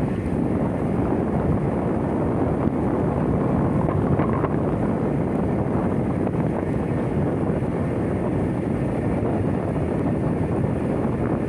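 Steady low rumble of wind buffeting the microphone aboard a boat at sea.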